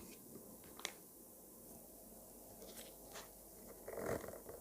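Bezel removal tool's blade being worked into the gap between a watch bezel and its case: a sharp metallic click about a second in, a few faint ticks, then a short scraping crunch near the end.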